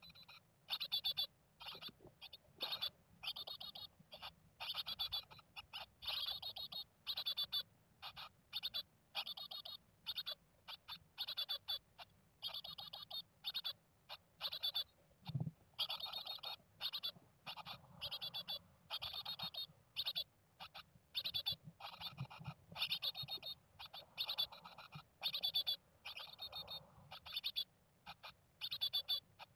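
Japanese tit nestlings calling inside the nest box: short high calls repeated about twice a second without a break. A single soft low thud comes about halfway through.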